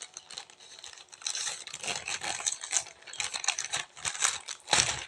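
A parcel's packaging being torn open and rustled by hand: irregular crinkling and tearing that starts about a second in and goes on in quick uneven strokes, with a louder rip near the end.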